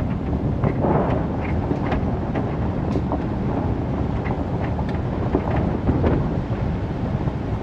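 Vehicle driving a dirt and gravel forest road: a steady low rumble of tyres and body, with scattered clicks and pops of stones under the tyres.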